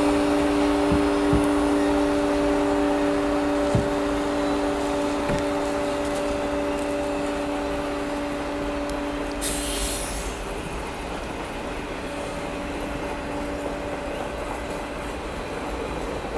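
CSX diesel locomotives passing close by: engines running with a steady droning tone over a rumble, slowly fading as the units pull away. A few low knocks come in the first seconds, and a brief hiss comes about nine and a half seconds in.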